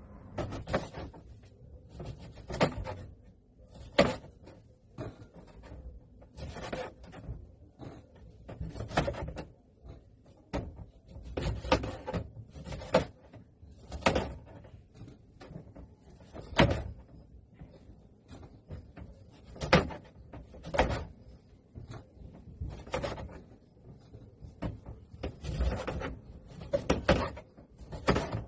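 Irregular knocks and clatters of hard objects being handled and set down, one or two a second with short pauses between.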